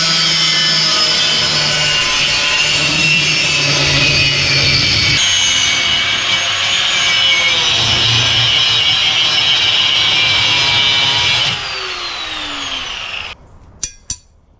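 Rotary power tool cutting through 1/8-inch steel flat bar: a loud, steady cutting noise with a high whine that shifts pitch about five seconds in. Near the end the cutting stops and the whine falls as the tool spins down.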